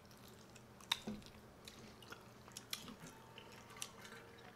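Close-up eating sounds of chicken wings being chewed: scattered soft, wet mouth clicks and smacks, with one sharper click about a second in.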